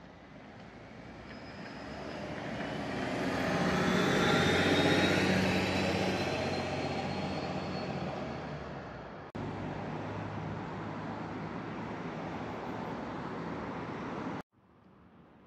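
A vehicle passes close by. Its low hum and a steadily rising whine swell to a peak a few seconds in and then fade. After an abrupt cut the sound becomes a steadier, even traffic noise, which stops suddenly near the end.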